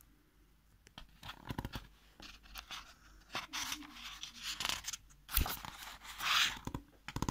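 Pages of a picture book being turned and handled: paper rustling and scraping with small clicks, the longest swish about six seconds in.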